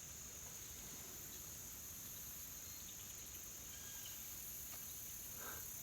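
Faint, steady high-pitched chorus of crickets and other insects.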